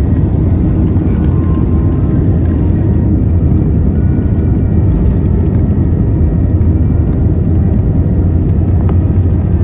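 Cabin noise of an Airbus A320-family jet rolling along the ground, heard from a window seat: a loud, steady low rumble from the engines.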